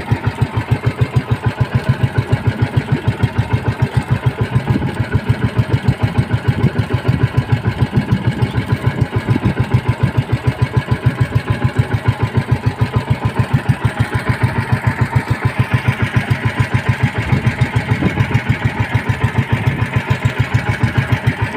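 Outrigger banca's engine running steadily at low throttle: an even, rapid chugging pulse that neither speeds up nor slows down.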